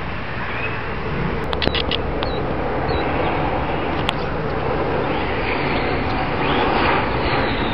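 Boeing F-15K fighter jet flying by, the steady roar of its twin General Electric F110 turbofan engines growing slowly louder. A few sharp clicks come about one and a half seconds in.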